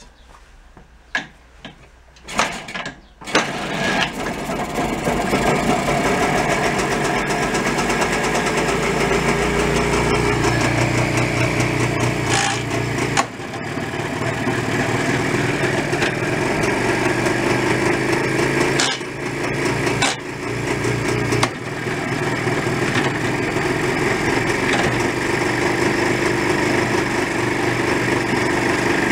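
A 1978 Jawa 634 350 motorcycle's air-cooled two-stroke twin engine is kicked over with a few clicks, catches about three seconds in and keeps running, its level dipping briefly a few times.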